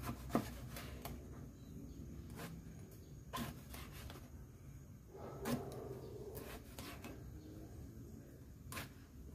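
Kitchen knife slicing eggplant on a plastic cutting board: a faint, irregular series of taps as the blade meets the board, roughly one every second or less.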